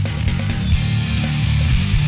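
Hard rock music with electric guitars. It gets fuller and brighter less than a second in as more of the band comes in.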